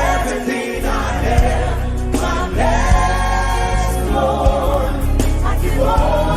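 Gospel worship music: a choir singing held, sliding phrases over a continuous bass accompaniment.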